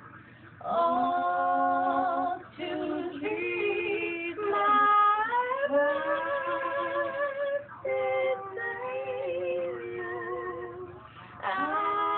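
A woman singing unaccompanied: several held notes with vibrato in short phrases, with brief pauses for breath between them.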